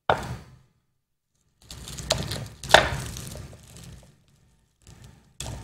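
Clear plastic bag rustling and crinkling in several bursts as croissants are handled in it, with one sharp tap near the middle.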